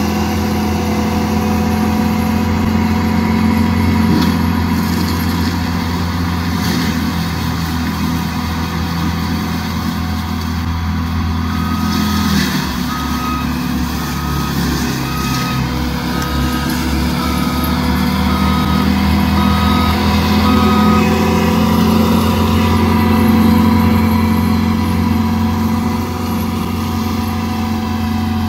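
Cat 299D3 XE compact track loader with a mulcher head running hard while clearing brush, a loud steady engine note that drops a little about twelve seconds in. Through the middle, a backup alarm beeps about eight times, a little over a second apart.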